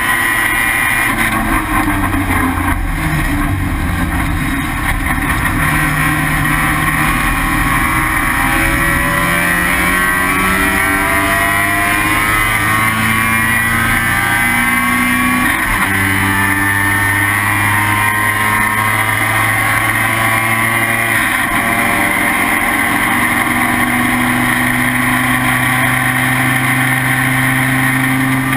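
Rotary engine of an IT7 Mazda RX-7 race car running hard at racing speed. Its pitch climbs through the revs, with sudden changes about halfway and again about three-quarters through that look like gear shifts.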